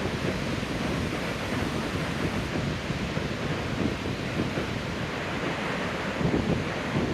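Atlantic surf washing up and back on a sand beach, a steady rushing wash, with wind buffeting the microphone.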